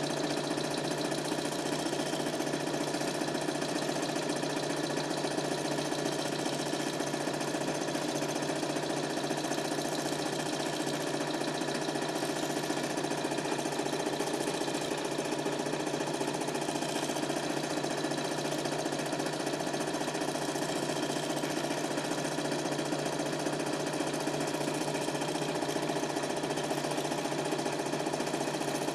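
Super 8 film projector running: a steady mechanical whirring clatter with no change throughout.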